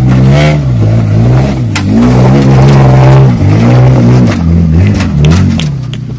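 3.4-litre V6 engine of a Toyota Land Cruiser J70 revving up and down again and again under load as the truck crawls up out of a deep rut. It dies away near the end.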